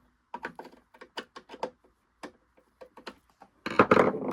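Quick run of small clicks and ticks from a screwdriver working a stubborn screw out of a Singer Genie sewing machine's housing, thinning to single clicks. Near the end comes a short, louder scraping rattle.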